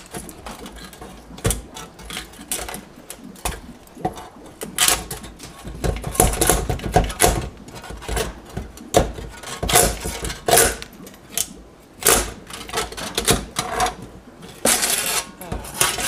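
Handsaw cutting through black plastic egg crate on the back stroke: a run of uneven rasping saw strokes with sharp clicks as the teeth catch on the plastic grid bars. The blade keeps getting jammed in the grid.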